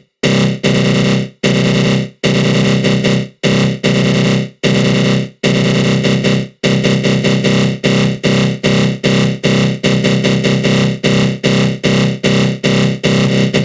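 Synthesized 'attack growl' sound effect: a low synth tone run through a flanger, chopped into bursts by sudden dropouts. The bursts are longer in the first half, then come as quicker pulses of about three a second.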